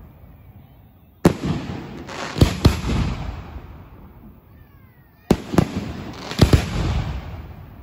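Fireworks going off: sharp bangs in two clusters, one about a second in and another about five seconds in, each followed by a long echoing rumble that fades over a couple of seconds.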